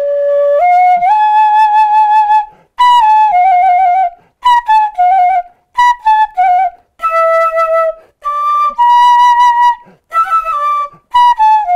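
Japanese bamboo transverse flute playing a song melody in short phrases with brief breaths between them, some held notes ornamented with quick trills.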